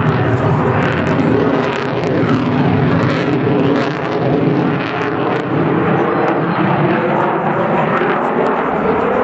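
Sukhoi Su-27 fighter's twin AL-31F turbofan engines in flight: a loud, steady jet roar with a few humming tones underneath.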